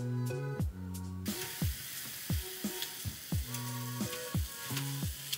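Ground meat sizzling in a hot nonstick skillet, the sizzle starting suddenly about a second in as the meat goes into the pan and continuing while it is stirred with a spatula. Background music with a steady beat plays throughout.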